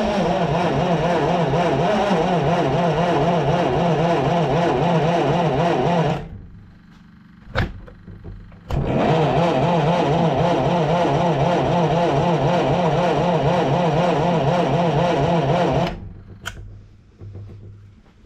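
Hercules ZXB four-cylinder flathead engine on a military Hobart generator being cranked over without catching: a whirring, evenly pulsing crank that stops abruptly about six seconds in, two sharp clicks, then a second crank of about seven seconds that also stops without the engine firing.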